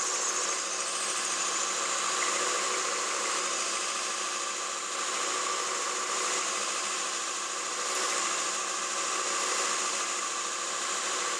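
Belt grinder running with a steel golf wedge head held against the abrasive belt in long strokes, a steady grinding noise that swells slightly now and then. The sole is being ground down to shape a C grind.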